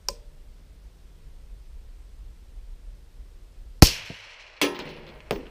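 A single shot from a suppressed AR-15 SPR in 5.56 about four seconds in, sharp and then trailing away. Two more sharp bangs follow within the next second and a half.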